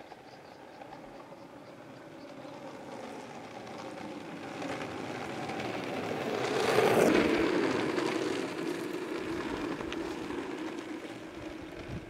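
Skateboard wheels rolling on an asphalt road, a steady rumble that grows as the board approaches, is loudest as it passes close about seven seconds in, and fades as it rolls away.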